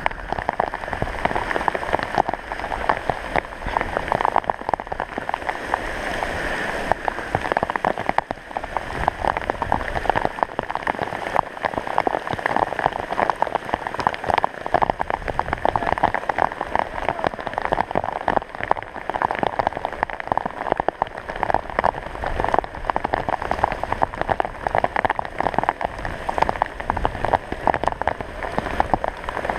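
Heavy rain falling steadily, with a dense, rapid run of close drop hits on the wet tarp just above the camera.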